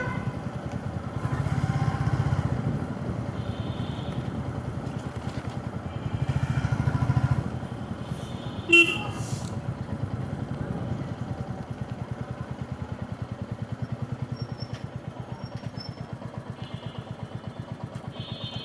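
Motorcycle engine running in slow traffic, its pulsing exhaust steady and swelling twice as it picks up, then settling to an even beat. A short vehicle horn beep sounds about nine seconds in.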